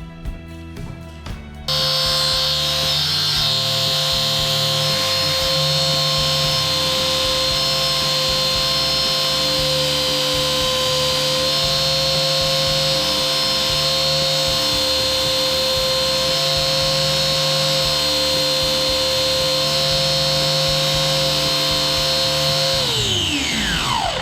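Angle grinder switched on, running at a steady high whine for about twenty seconds, then switched off and spinning down with a falling pitch.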